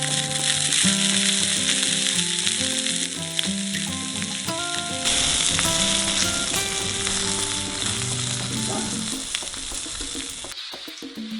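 Coarse-ground sausages sizzling in a hot frying pan, a steady frying hiss that dies away near the end. Background music plays underneath.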